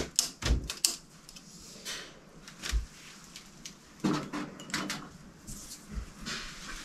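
Handling noise in a cupboard: a quick run of sharp knocks and clicks, then a few more scattered knocks of objects and wood being moved.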